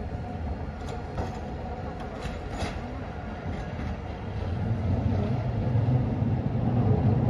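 Street tram running on its rails: a few sharp clicks, then a low rumble that grows louder from about four seconds in as it comes closer.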